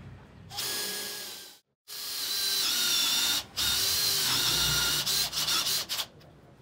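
Makita 18V cordless drill boring holes into the wooden bench frame: the motor whines and sags under load in several runs with short breaks, the last ending in a few quick stop-start bursts about six seconds in.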